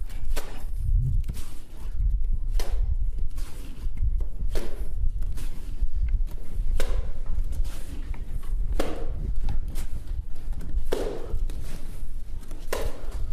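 Wet cement render being scooped from a bucket and thrown onto a rough masonry wall: a dull slap about every two seconds, over a steady low rumble.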